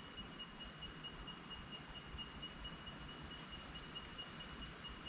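Quiet outdoor creekside ambience: a faint, even background hiss with a thin, steady high-pitched tone, and a few faint high bird chirps in the second half.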